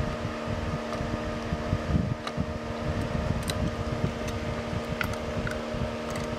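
A steady background hum with faint, scattered light clicks and handling noise as a small screwdriver turns the screws out of a model train tender's body.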